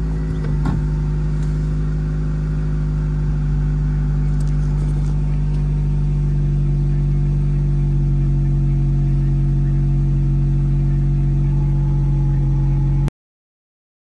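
Honda Accord 2.2-litre four-cylinder engine just started, idling steadily, heard from inside the car. It is running after its distributor cap and rotor were cleaned of corrosion to cure a misfire. The sound cuts off suddenly about a second before the end.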